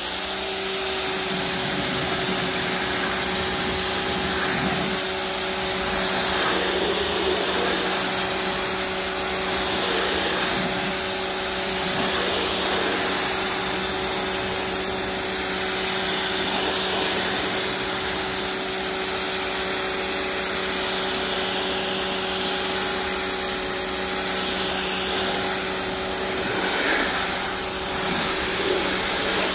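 Pressure washer running steadily: its motor and pump hum without a break while the spray hisses, rinsing soap foam off a car.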